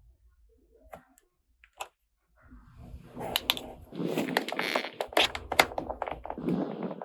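Small toy makeup-playset pieces being handled: quiet at first with a few faint clicks, then from about two and a half seconds in a dense run of rapid clicking and rattling over a rustle.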